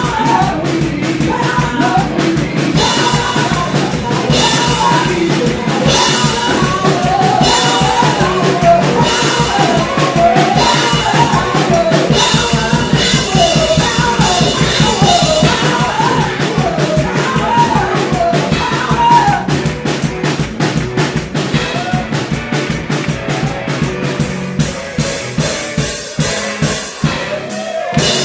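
Live gospel praise music: a woman singing into a microphone over a steady drum-kit beat, amplified through the hall's loudspeakers.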